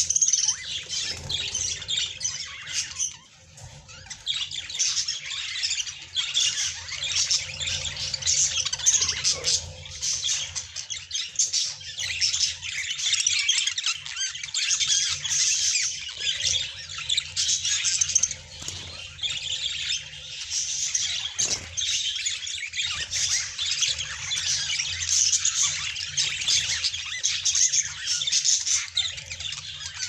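A flock of budgerigars chattering and chirping without pause, many birds calling over each other at once.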